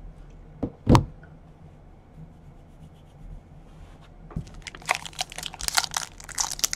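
A single sharp knock about a second in, then from about five seconds a quick run of crackling and tearing as a sealed Panini Gold Standard cardboard card box is torn open by hand.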